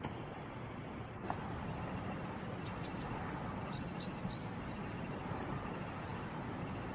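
Steady outdoor background noise, with a few short, high bird chirps about three to four seconds in.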